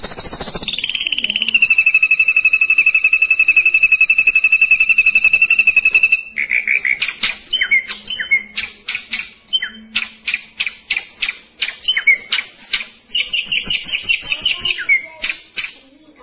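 Ashy drongo singing: a fast trill held on one pitch for about four seconds, then a quick run of sharp chirps and whistled notes.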